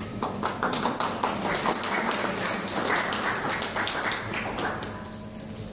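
A group of people applauding: many overlapping hand claps that start just after the beginning and die away near the end.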